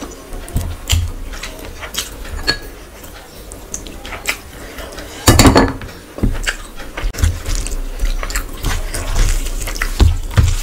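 Close-miked fingers squishing and mixing rice with curry gravy on a plate, making many small wet clicks and smacks. One louder knock comes about five seconds in.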